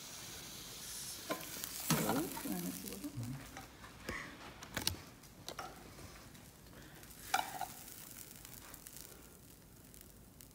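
Pre-cooked rice sizzling in oil in a hot frying pan, then a few clinks and scrapes of a metal spoon against the pan.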